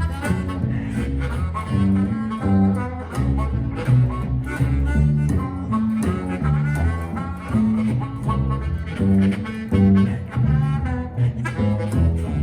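Blues band playing an instrumental passage: a bass line stepping from note to note under a blues harmonica (harp) wailing and bending notes.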